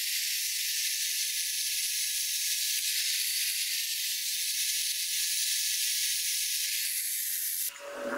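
Angle grinder with a flap disc sanding the steel head of a cross-peen hammer: a steady, high hiss that breaks off near the end.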